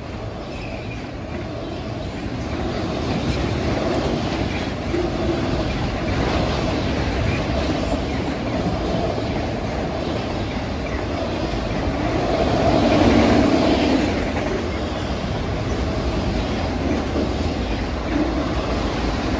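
Autorack freight cars rolling past at speed: a steady rumble of steel wheels on the rails that builds over the first few seconds and swells to its loudest about thirteen seconds in.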